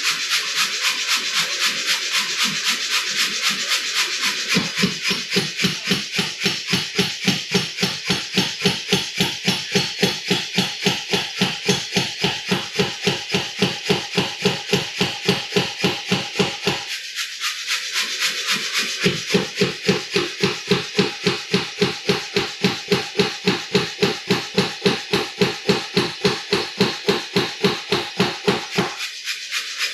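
Power hammer striking hot steel in a rapid, steady beat of blows, heavier from about four and a half seconds in. It pauses for about two seconds around seventeen seconds, then hammers on and stops just before the end.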